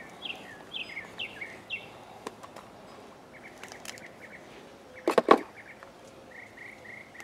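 Birds chirping outdoors in short repeated phrases, with one brief loud sound about five seconds in.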